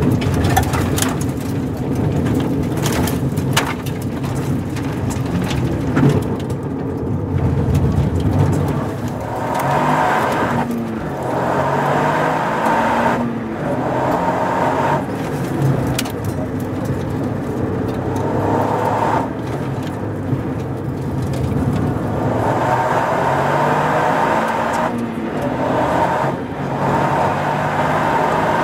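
Toyota GR Yaris rally car's turbocharged three-cylinder engine, heard from inside the cabin, pulling hard under acceleration; the revs climb and drop again and again at gear changes and lifts. During the first few seconds, gravel and stones clatter against the underbody.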